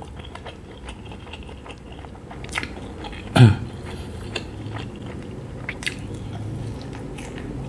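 Close-miked chewing and biting of a fried skewered Thai sausage, with soft mouth sounds and small clicks. A brief sound from the eater's voice comes about three and a half seconds in.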